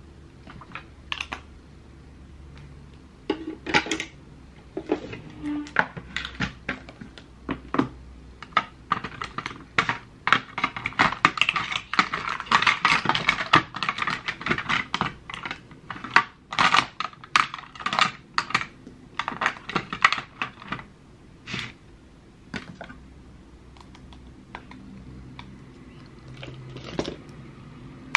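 Rapid clicking and tapping of small hard plastic makeup cases, lids and tools handled on a desk. The clicks are scattered at first, come thick and fast in the middle, then thin out near the end.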